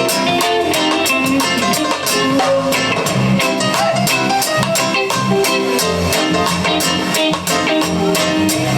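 Live band playing an instrumental passage: guitar, bass and drum kit with a steady beat.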